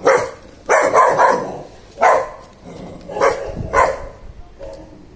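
A Rottweiler barking: about six loud, separate barks at an uneven pace.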